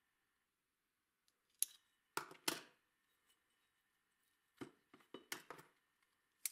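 Light metallic clicks and taps from handling a stainless digital caliper and small steel plates on a wooden workbench: a sharp click about a second and a half in, a few knocks a little after two seconds, and a quick run of clicks near the end.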